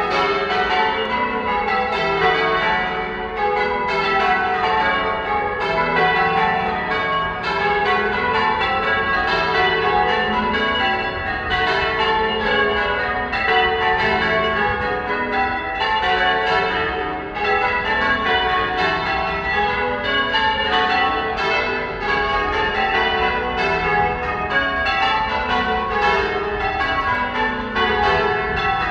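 Church tower bells rung in changes: a rapid, unbroken succession of bell strikes, each tone ringing on under the next.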